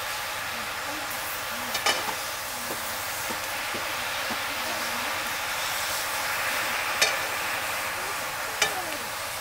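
Chopped leafy greens sizzling in a black pan over a wood fire while a wooden ladle stirs them, a steady frying hiss. Three sharp clicks stand out: one about two seconds in and two near the end, the middle one the loudest.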